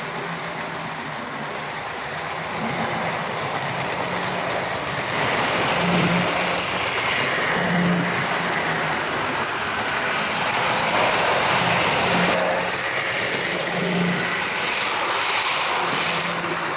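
Hornby OO gauge Thomas & Friends Duck model locomotive running on the track: a steady small electric motor hum with wheel and rail noise, louder from about a third of the way in.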